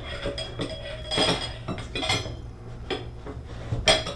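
Metal bathtub spout being screwed onto its threaded pipe by a gloved hand: a series of light metallic clinks and scrapes, the loudest near the end.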